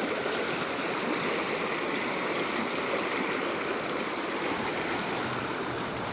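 Floodwater rushing steadily in a swollen creek running high after heavy rain.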